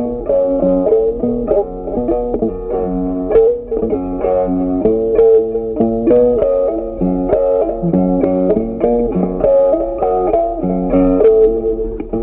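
Background music: an instrumental tune played on plucked guitar, the notes changing a few times a second.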